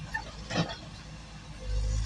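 Sany SY225 excavator's diesel engine running steadily, with a single clank about half a second in and a louder low surge near the end.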